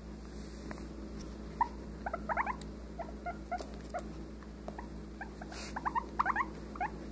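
Guinea pig making soft, short squeaks in quick runs, a cluster about two seconds in and another near the end, with a few faint taps of its feet on the wooden floor.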